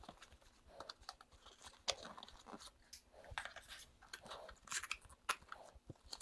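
Faint crinkling and rustling of a cardboard box and its packaging being handled and opened out, with scattered small clicks.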